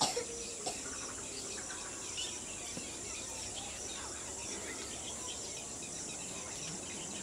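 Outdoor ambience: a steady high insect buzz with faint scattered bird chirps, and a couple of small clicks in the first second.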